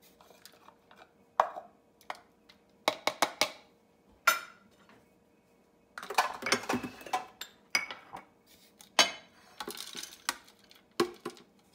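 Irregular knocks, clinks and scraping as a plastic food-processor bowl and its blade are handled and a spatula scrapes a sticky ground nut-and-date mixture out of the bowl into a glass dish. The clatter is busiest in the second half.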